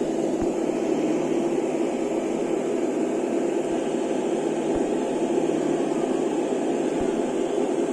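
RC truck sound module playing a simulated diesel engine idling through its small speaker: a steady, even drone that does not shut off, with a few faint knocks.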